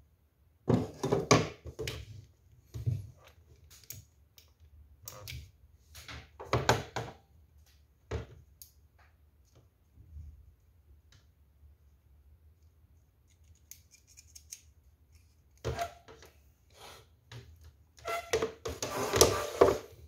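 Plastic hair-dryer parts and small tools handled on a wooden table: bursts of clicks, scrapes and knocks with quiet pauses between, busiest about a second in and near the end.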